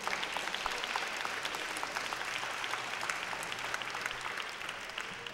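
Congregation applauding: many hands clapping in a dense patter that starts at once and eases off slightly near the end.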